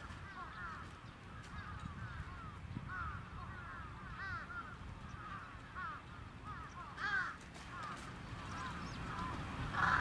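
A flock of crows cawing, many repeated, overlapping calls with a louder cluster about seven seconds in, over a low steady rumble.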